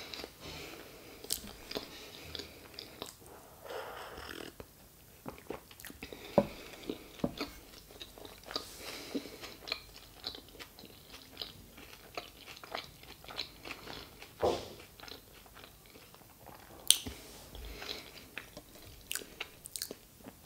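A person chewing food with the mouth closed: soft, irregular wet smacks and small clicks of eating.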